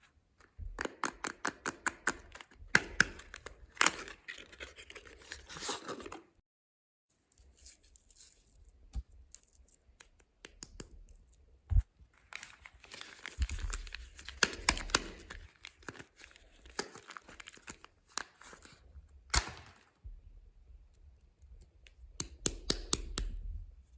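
Soap packaging being unwrapped by hand: wrappers crinkling and tearing, with many sharp clicks and snaps, in several bursts separated by short pauses.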